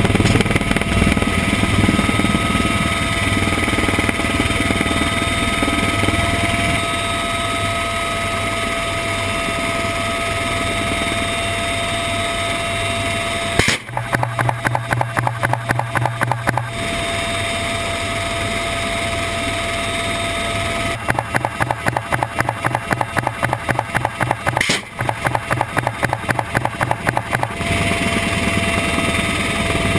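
Steady rotor and turbine noise inside the UH-1Y Venom's cabin, with a steady whine. About halfway through, the door-mounted six-barrel minigun fires a rapid burst of about three seconds. A few seconds later it fires a longer burst of about six seconds.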